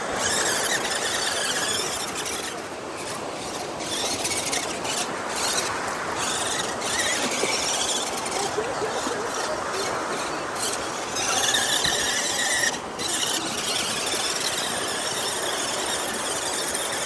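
Sherp amphibious ATV on the move, giving off a continuous high-pitched squeal over a steady rushing noise, which eases off briefly in places and comes back strongly about eleven seconds in.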